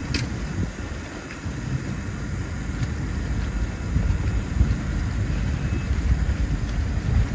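Wind buffeting the microphone: a gusty low rumble that grows stronger about halfway through, with a brief click near the start.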